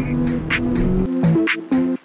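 Background music: an instrumental track of pitched melody notes over a steady beat, with the low bass dropping out about a second in.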